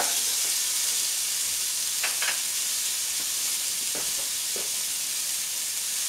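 Sliced carrots sizzling in hot olive oil in a sauté pan: a steady hiss, with a few faint clicks about two and four seconds in.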